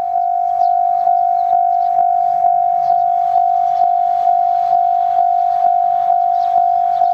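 Japanese level-crossing warning bell ringing its "kan-kan" alarm: one steady tone struck about twice a second, the signal that a train is approaching and the barriers are down.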